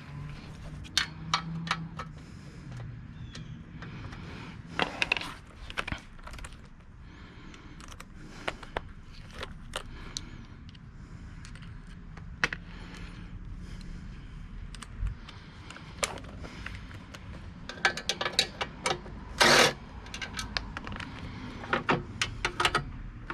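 Hand tools and small metal engine parts clinking and knocking at irregular intervals while the engine is being taken apart. Near the end comes a quicker run of clicks.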